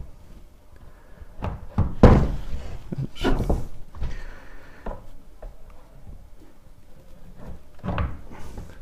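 Wooden knocks and thuds from an old pine wardrobe door being handled and hung. The loudest knock comes about two seconds in, more follow around three and a half seconds, and there is another near the end.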